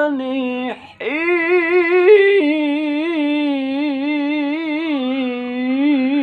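A man chanting Qur'an recitation in the melodic tilawah style, holding long ornamented notes that waver up and down in pitch. He breaks off for a quick breath about a second in, then sustains one long phrase.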